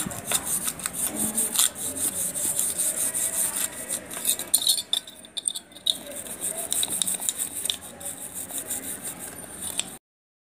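A brush scrubbing a small silver lamp with tooth powder: a fast, rhythmic scratching of many short strokes, with a brief pause about halfway through. It cuts off abruptly near the end.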